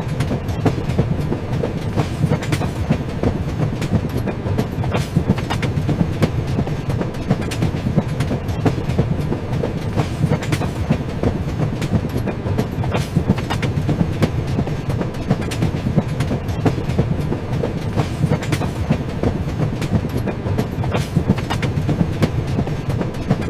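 Moving train: a steady low rumble of wheels on the track, with frequent irregular clicks and clacks.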